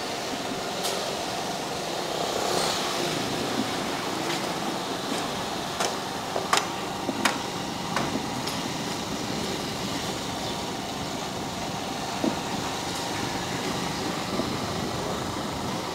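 Motorcycle riding at a steady pace: a constant wash of engine and wind noise, with a few sharp ticks about six to eight seconds in.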